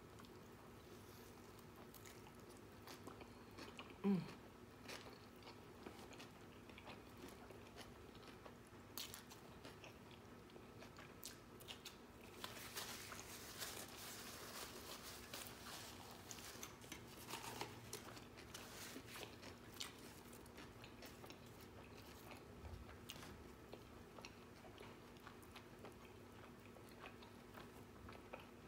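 A person chewing and biting into a bacon cheeseburger: faint, wet mouth sounds with scattered small clicks, denser for a few seconds a little before the middle.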